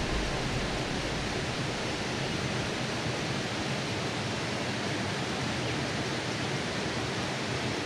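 Steady rushing of water, an even unbroken hiss.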